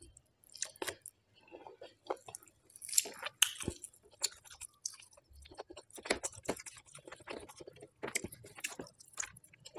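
Close-miked chewing of a mouthful of rice: a run of short, irregular mouth clicks and smacks.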